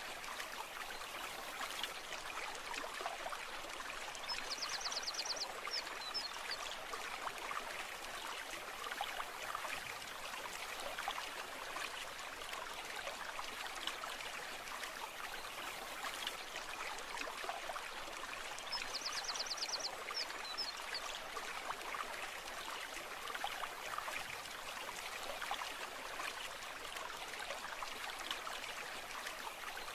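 A brook running steadily, its water babbling and trickling. A short, rapid high-pitched trill is heard twice, about five seconds in and again around nineteen seconds.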